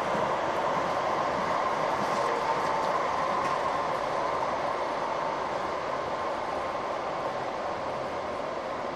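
Passenger train running along the track, heard from inside the carriage: a steady rushing noise of wheels on rail that eases off a little near the end.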